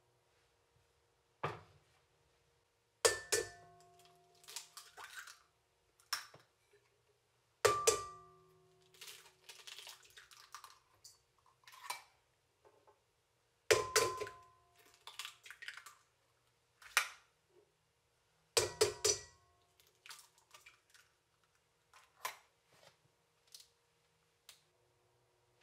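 Eggs being cracked one at a time on the rim of a stainless steel stand-mixer bowl: four sharp taps a few seconds apart, each making the bowl ring briefly, followed by the crackle of the shell being pulled apart. A lighter knock comes about a second and a half in, with a few smaller taps near the end.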